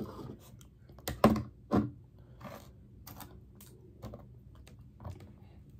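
Several light, separate taps and clicks from hands handling things at the table, the sharpest two a little over a second in.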